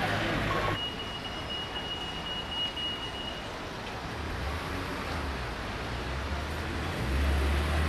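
City street traffic: the steady noise and low rumble of passing vehicles. A thin, steady high tone runs from about a second in to about three and a half seconds, and the low rumble grows louder near the end.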